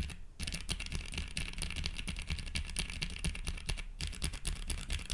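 Fast typing on a mechanical keyboard, an OC-62 with Cherry MX Black or HMX Sonja switches: a dense, even run of key clacks, broken by brief pauses near the start and about four seconds in.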